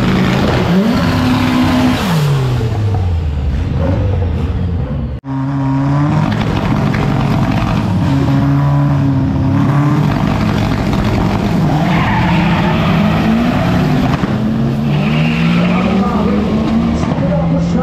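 Drag-race car engines revving at the start line, their pitch rising and falling repeatedly, with tyre squeal as the cars launch down the strip.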